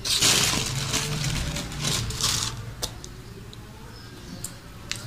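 Rustling handling noise in two hissy bursts, followed by a few light clicks.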